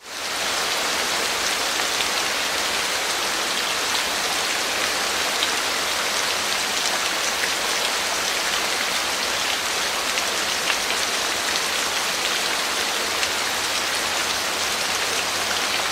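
Falling water: a steady, unbroken hiss of water pouring and splashing, with fine droplet ticks through it.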